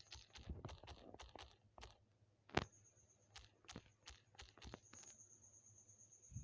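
A string of faint, irregular clicks and taps, about a dozen, some in quick clusters, over a faint steady high-pitched whine.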